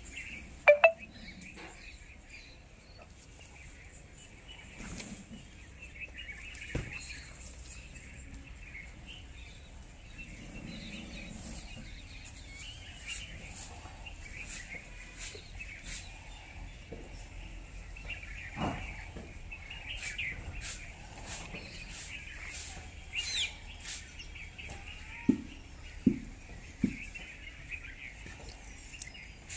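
Birds chirping steadily in the background, with scattered clicks and a few short sharp knocks, the loudest about a second in and three close together near the end.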